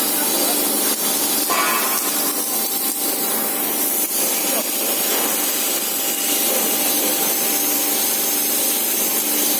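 Loud, continuous hissing, grinding machine noise from workshop machinery used to make mattress spring frames, with a faint steady hum and a brief higher squeal about a second and a half in.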